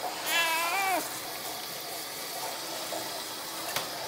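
Elderly cat giving one wavering meow, under a second long, near the start as it protests being rinsed. Water from a grooming sprayer runs steadily.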